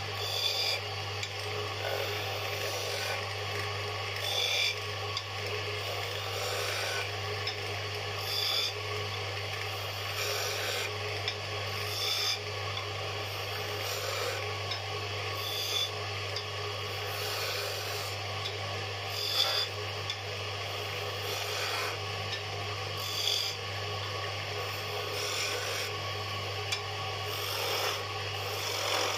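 Wood lathe motor humming steadily as a hand-held turning chisel cuts into a spinning wooden spindle, giving a rasping scrape that flares every couple of seconds as the tool is pressed in.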